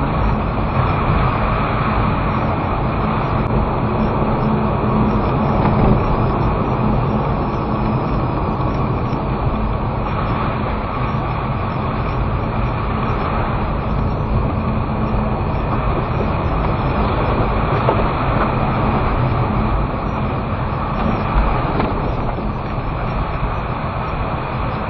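Steady engine and tyre noise heard inside a car's cabin as it drives along a snow-covered road.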